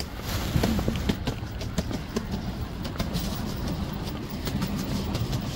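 Low rumble of a passing vehicle, with many short sharp clicks scattered through it.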